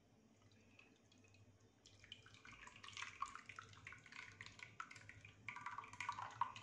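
Thick agar agar halwa mixture poured from a pan into a glass baking dish: a faint, dense wet splattering and plopping that starts about two seconds in and carries on as the stream thins.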